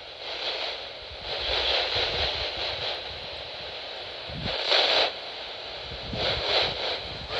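Radio static: a hiss from a receiver that swells and fades several times, loudest about five seconds in, over a low rumble.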